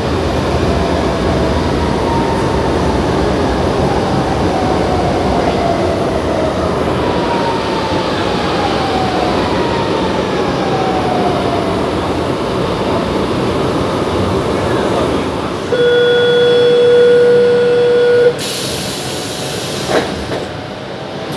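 Frota F metro train running and slowing into a station, with steady rumbling and several falling whines as it brakes. After it stops, a steady beep of about two and a half seconds sounds, followed by a short hiss and a sharp click as the doors work.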